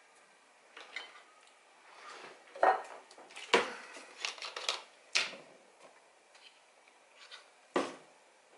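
Irregular sharp clicks and clacks of small items being picked up, handled and set down on a workbench, most of them bunched in the middle with a last one near the end.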